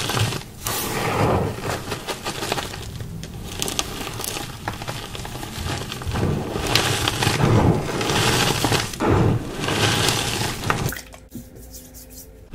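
Close-up crunching of dyed, pasted 'A chalk' blocks being bitten and chewed, in repeated bursts, the dye and paste having left the chalk crunchy and dusty. The crunching stops about eleven seconds in.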